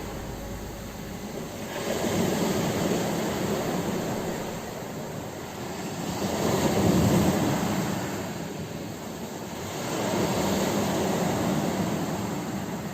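Ocean waves breaking and washing up on a shore, the surf rising and falling in three surges a few seconds apart.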